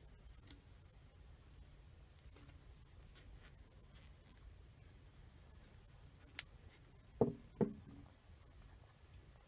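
Glass milk bottle handled and turned in the hand, with faint rubbing and light clicks, then two knocks less than half a second apart as glass is set down on a wooden shelf.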